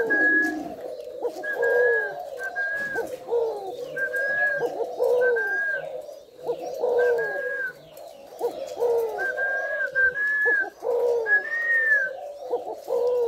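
Caged spotted doves cooing over and over, one coo following another about every second without a break: the bowing display coo that keepers call 'gù'.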